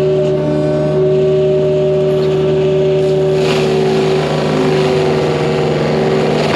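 Excavator running with a Prinoth M450e-900 mulcher head spinning, a steady high hum. About halfway through the mulcher bites into wood and a rougher grinding sets in, its pitch sagging under the load.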